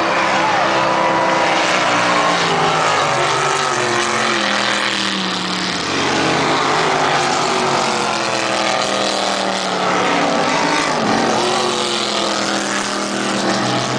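Racing powerboat engines running flat out on a race course, several engine notes overlapping, their pitch bending as boats speed past.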